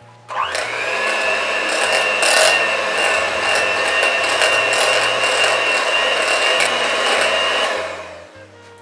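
Electric hand mixer running on low speed, its beaters whisking cream cheese in a glass bowl. It starts abruptly just after the start and runs steadily with a high whine for about seven and a half seconds, then winds down near the end.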